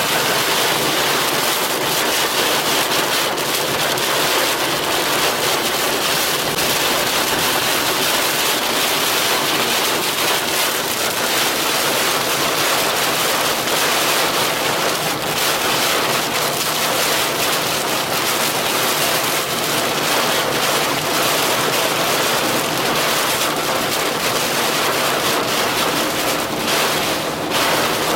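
Heavy rain hitting a moving car, with road spray under the tyres: a loud, steady, dense hiss.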